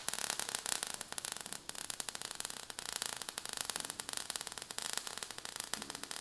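Sound effect of crackling sparks: a dense run of small clicks over a steady hiss.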